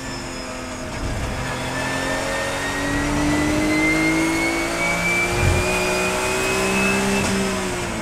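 Porsche 991 GT3 Cup race car's flat-six engine heard from inside the cabin, pulling in fourth gear. Its pitch holds for a moment, climbs steadily for about five seconds as the car accelerates, then drops near the end as the throttle is lifted. A brief low thump comes about halfway through.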